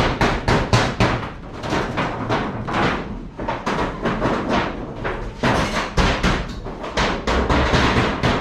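Repeated hammer blows in quick, uneven runs of about three or four strikes a second, each a sharp bang.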